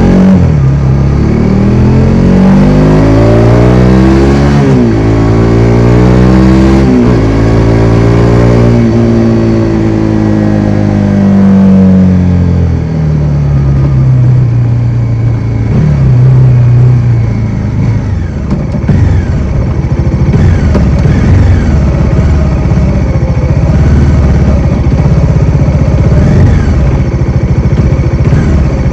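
Bajaj Dominar 400's single-cylinder engine under way: the revs climb and drop sharply twice with gear changes in the first seven seconds, then wind down over a few seconds as it slows. It then runs low and uneven for the rest.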